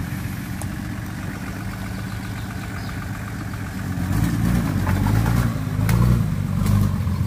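Off-road 4x4's engine running low and steady as it crawls over a muddy forest track, then revving louder and unevenly from about four seconds in as it pulls up a steep dirt bank.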